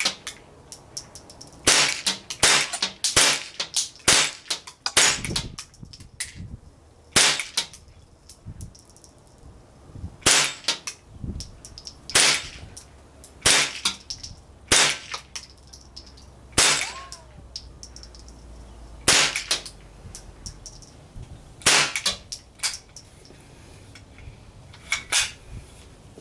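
Winchester Model 77 semi-automatic .22 LR rifle firing a string of about twenty single shots at an uneven pace, some in quick pairs. Each shot is a short, sharp crack.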